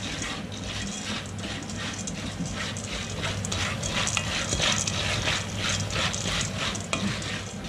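Popcorn kernels crackling and rattling in hot oil in a pot on the stove: a rapid, uneven run of crackles, about four or five a second, over a steady low hum.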